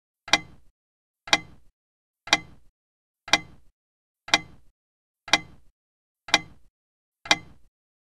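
Loud, sharp mechanical ticks at an even one per second, eight in all, each with a short ringing tail and silence between them.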